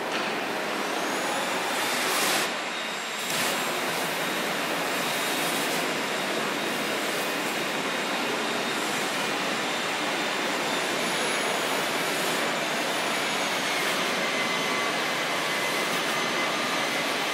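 Propane heat-shrink gun burning with a steady rushing hiss as its flame shrinks plastic wrapping film. The hiss dips briefly about three seconds in.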